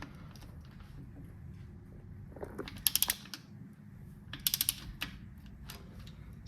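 A socket ratchet clicking in two quick runs of several clicks each, about three and four and a half seconds in, as it is swung back between pulls on a cylinder head bolt being cracked loose.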